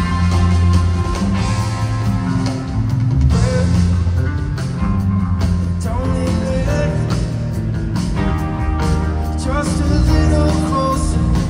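Rock band playing live: electric guitar, bass guitar, drum kit and keyboards, recorded from within the crowd.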